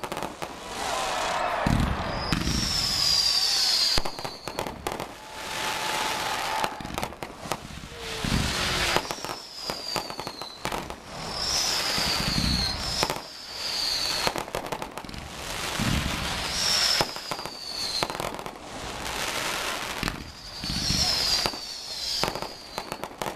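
Fireworks display: aerial shells bursting with a deep boom every three to four seconds over continuous crackling, with high whistles falling in pitch between the booms.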